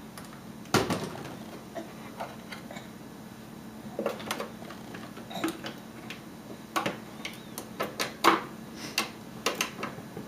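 Irregular light knocks and clicks, about a dozen, the loudest a thump just under a second in, over a faint steady hum.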